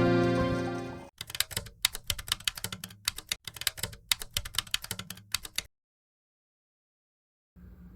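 Typing on a computer keyboard: a quick, uneven run of key clicks lasting about four and a half seconds, after background music fades out. The clicks cut off abruptly into silence.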